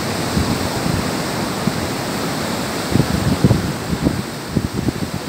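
Wind blowing over a phone microphone: a steady rush, with low buffeting thumps from about halfway in.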